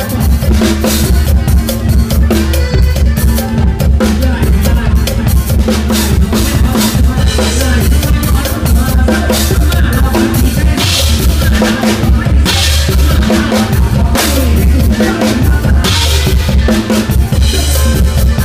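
Acoustic drum kit played live and recorded close to the kit: a fast, steady beat of kick, snare and cymbals driving a mor lam sing band, with the band's bass and other instruments underneath.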